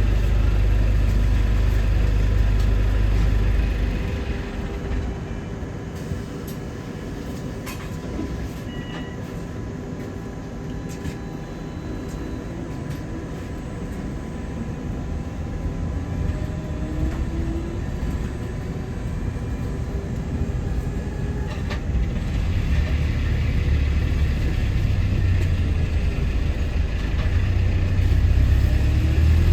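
Interior sound of a London double-decker bus: the engine runs with a loud low rumble, drops away to a quieter hum about four seconds in, and rises back to a loud rumble from about three-quarters of the way through.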